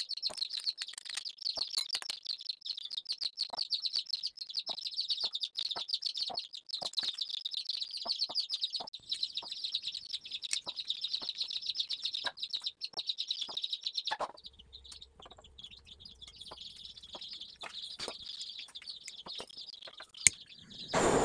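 Many small birds chirping in a dense, rapid twitter that drops to fainter chirping about two-thirds of the way through. A single sharp click near the end.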